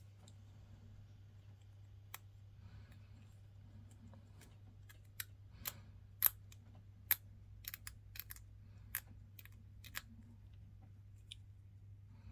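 Hobby knife blade scraping mould lines off a small plastic miniature part: faint scratching with irregular sharp little clicks as the blade catches the plastic, over a low steady hum.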